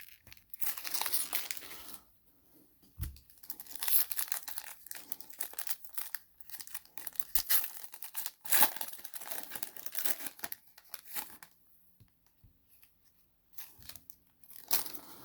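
Foil trading-card pack wrappers being torn open and crinkled, in irregular bursts of rustling with a short pause about three-quarters of the way through.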